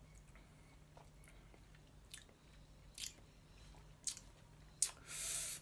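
Faint wet lip smacks and mouth clicks from a person tasting a mouthful of sour beer, a few sharp ones about a second apart, then a short breathy hiss of breath near the end.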